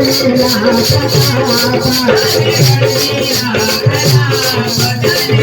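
Adivasi folk dance music, instrumental: a fast, even shaker-rattle beat over low drum strokes, with a wavering melody line.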